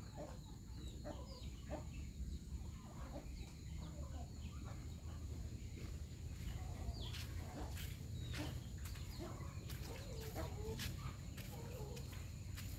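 Domestic fowl clucking and calling in short, scattered notes, with a few sharp clicks and a steady low rumble underneath.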